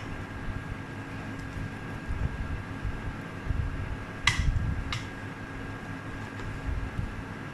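Wooden spatula stirring chunky corn and chicken soup in a pot, with low rumbling from the stirring and two sharp knocks against the pot a little past the middle. Under it runs the steady fan hum of the portable electric hob.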